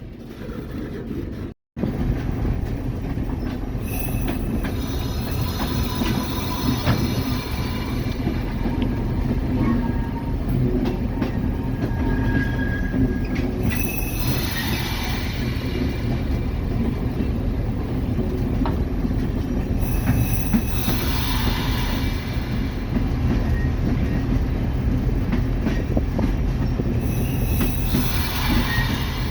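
Loaded railroad ballast car rolling along the track at about 10 mph, a steady rumble of wheels on rail with bursts of higher-pitched wheel squeal every several seconds. The sound cuts out briefly near the start.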